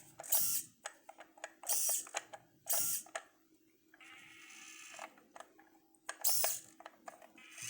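Small plastic and metal scale-model parts being handled, clicking and scraping, with several short sharp scrapes. About four seconds in comes a fainter, steady whirr lasting about a second and a half.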